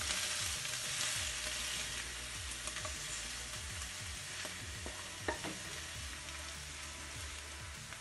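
Pickled beet stalks (pezik) with potato sizzling in a hot cast-iron pan while a wooden spoon stirs and scrapes them out onto a plate. There are a few spoon knocks, the loudest about five seconds in, and the sizzle slowly dies down.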